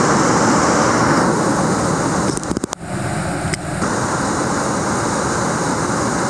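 Rushing whitewater of a large river rapid, a steady, loud roar of churning water. About two and a half seconds in, the sound briefly dips and there are a few clicks, then the steady roar resumes.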